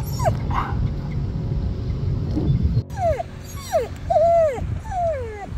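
Husky whining: from about three seconds in, a run of about five whimpers, each falling in pitch, some short and some drawn out. Before that, a low rumbling noise.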